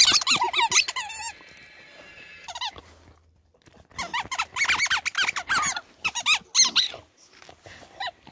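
A rubber squeaky toy squeaking in quick runs as a dog bites down on it. The squeaks stop about a second in, then start again for several seconds.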